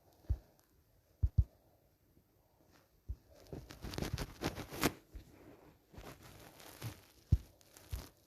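Handling noise: a few soft, short knocks, two of them in quick succession just after a second in, and stretches of rustling through the middle.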